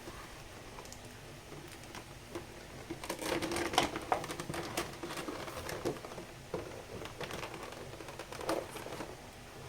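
Figure packaging being handled: rustling and crinkling with small clicks and taps, busiest from about three seconds in.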